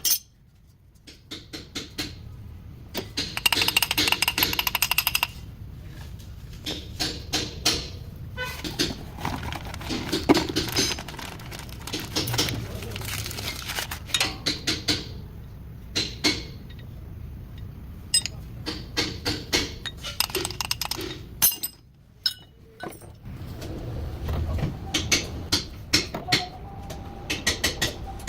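Metal tools clinking and knocking on car suspension parts, with a rapid run of clicks about three seconds in.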